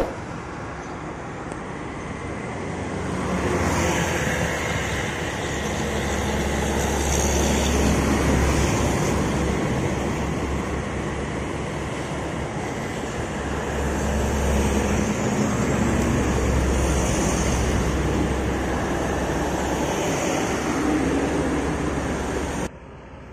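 Road traffic going past: diesel trucks and motorbikes, their engine drone swelling and fading as each vehicle passes, over steady tyre and road noise. The sound drops away suddenly near the end.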